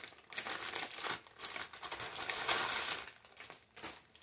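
Plastic packaging crinkling and rustling as it is handled, in irregular bursts that die away near the end.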